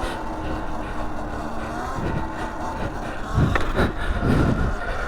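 Sur Ron Light Bee X electric dirt bike being ridden: a steady motor whine over a low rumble, with a few knocks from the bike about three and a half to four and a half seconds in.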